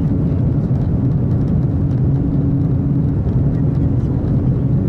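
Cabin noise of the Japanese maglev train running through a tunnel at about 450 km/h: a steady, loud low rumble with a faint hum.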